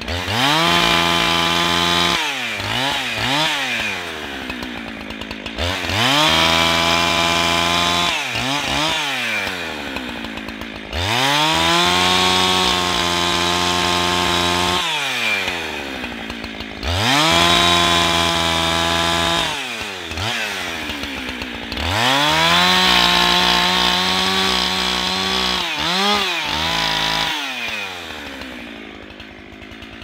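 Chainsaw cutting through a felled tree: it revs up to full throttle and holds for a few seconds, then drops back toward idle, five times over about every five to six seconds, with a couple of quick blips of the throttle near the end.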